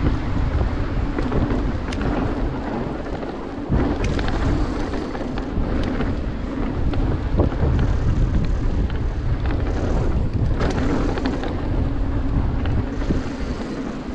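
Mountain bike rolling fast down a dirt trail: steady wind rumble on the microphone over the sound of tyres on dirt, with frequent sharp clicks and knocks as the bike rattles over bumps.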